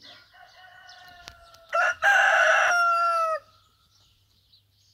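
Rooster crowing: one long crow of about three seconds, much louder from about two seconds in, its pitch falling away at the end.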